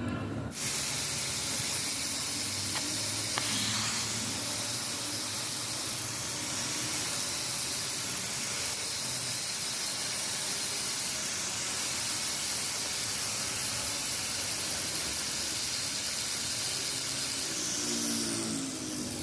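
A grinder grinding the steel of a lathe tool bit, a steady hiss that fades out near the end.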